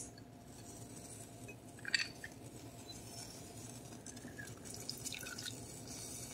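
Lemon half being squeezed in a hand-held citrus press over a saucepan: a short click about two seconds in as the press closes, then faint dripping of juice into the sauce near the end.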